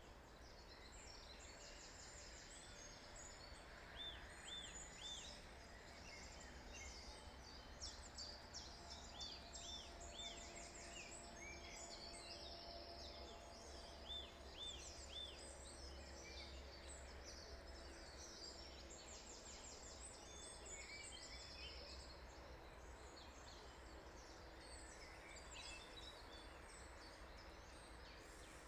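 Faint morning chorus of several songbirds. One repeats a short phrase of three or four arching notes every few seconds, while others sing quick, high trills, over a low steady rumble.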